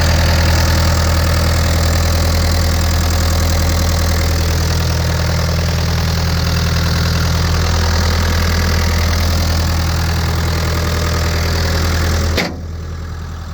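Caterpillar 236B skid steer's four-cylinder Caterpillar diesel idling steadily, an engine with a newly replaced head gasket and head bolts. About twelve seconds in the sound drops suddenly to a quieter, duller hum while the engine keeps running.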